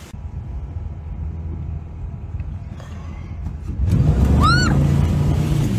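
Motorboat engine running with a low rumble, then opening up sharply about four seconds in as the boat accelerates. A brief high squeal sounds just after the surge.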